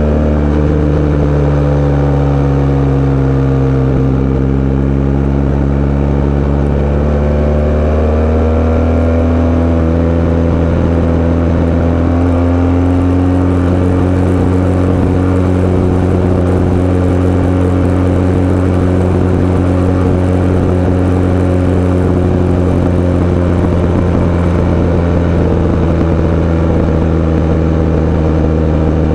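Sport bike engine running while riding. The engine note eases down over the first few seconds, climbs again from about eight seconds in, then holds steady at cruising revs.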